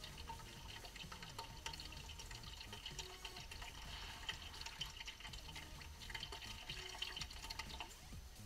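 Gearbox oil draining in a thin stream from the drain hole of a Volkswagen Up gearbox into a plastic bottle: a faint, steady trickle and patter of liquid.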